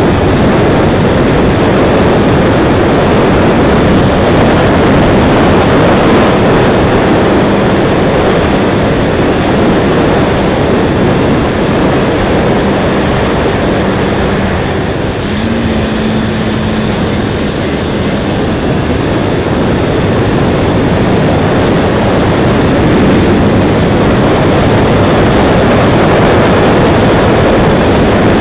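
Onboard-camera sound of a FunCub RC plane in flight: its electric motor and propeller running with loud, steady wind rush over the microphone, dipping slightly in level about halfway through.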